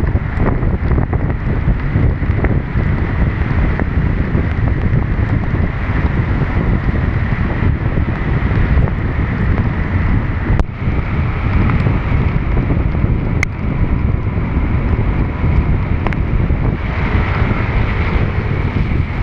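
Wind buffeting a DJI Action 2 camera's microphone while riding at speed through heavy rain, over a steady hiss of rain and wet road. One sharp click comes about two-thirds of the way in.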